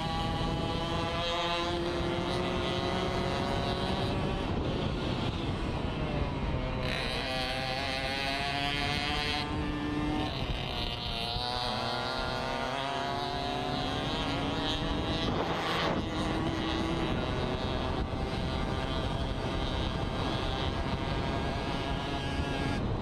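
Racing moped's small engine revving hard at speed, heard from on board. Its pitch climbs through each gear and drops several times at shifts and into corners, with wind rushing over the microphone.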